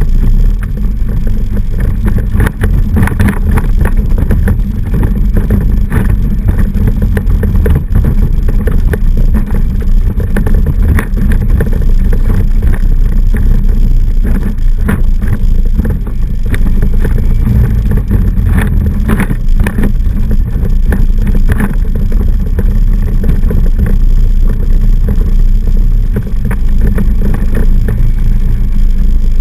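ATV engine running steadily while riding a trail, with frequent short knocks throughout.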